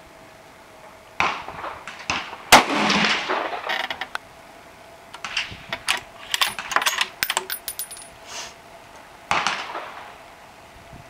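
Scoped bolt-action rifle fired once, a sharp crack with a ringing tail about two and a half seconds in. A few seconds later the bolt is worked: a run of metallic clicks, with the clink of the spent brass case dropping. Two other gunshots sound about a second in and near the end.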